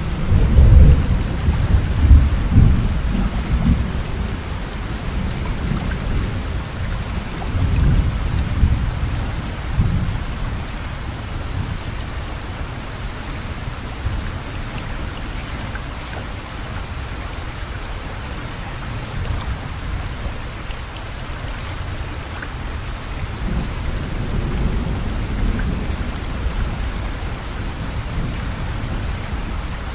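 Steady rain falling, with low rolling rumbles of thunder that are loudest in the first few seconds, come back about eight to ten seconds in, and return more faintly near the end.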